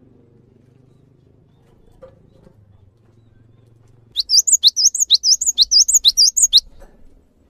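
A cinereous tit (gelatik batu) singing: about four seconds in, a loud, rapid run of sharp, high, upward-sweeping whistled notes for about two and a half seconds.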